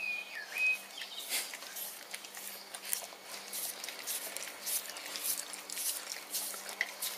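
Husky-type dog licking bare toes: a string of quick wet licking and slurping smacks. Two short, high, whistle-like squeaks come in the first second.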